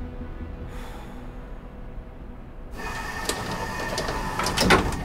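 Elevator car humming, then its sliding doors run with a whirring, rattling mechanical noise and end in a sharp knock near the end.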